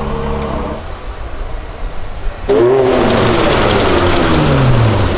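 A low engine rumble, then about two and a half seconds in a Ferrari 360 Modena's V8 comes in loud, its pitch falling steadily over the next two seconds or so.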